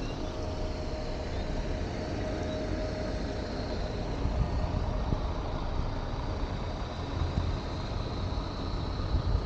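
Steady low rumble and noise of a moving vehicle.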